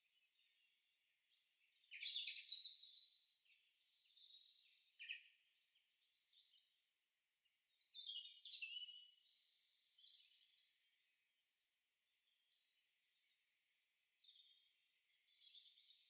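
Faint songbirds singing, several overlapping songs of chirps, quick trills and falling whistles, busiest about two seconds in and again from about eight to eleven seconds in.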